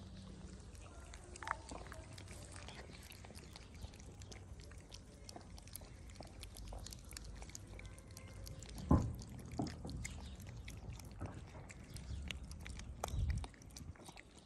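Stray cats chewing and smacking on wet cat food eaten from plastic trays close by, with many small clicks. A louder thump comes about nine seconds in and another near the end.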